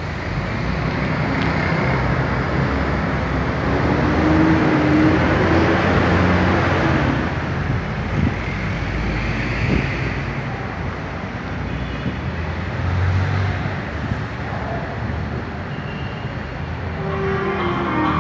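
Steady rumbling background noise of a metro station, louder for a few seconds near the start and easing off in the second half.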